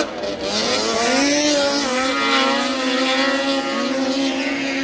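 Racing snowmobile engines passing close on an ice oval track, the engine pitch rising about a second in and then holding a steady high drone as the sleds run on.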